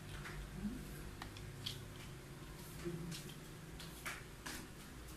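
Faint, scattered clicks and rattles of hard plastic as a Beyblade spinning top is handled and fitted onto its launcher.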